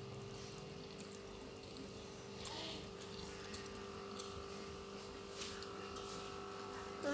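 Quiet room tone with a steady electrical hum and a few faint, soft clicks.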